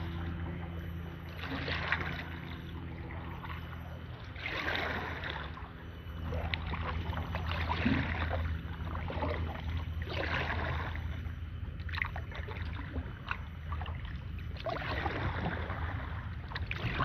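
Kayak paddle strokes in calm water: a splash-and-pull of the blade about every two and a half seconds. A low steady hum runs underneath.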